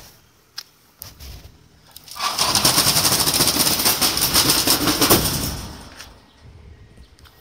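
A corrugated metal roll-up garage shutter being raised, its slats rattling fast and loud for about three and a half seconds, starting about two seconds in and fading out. A few light clicks come before it.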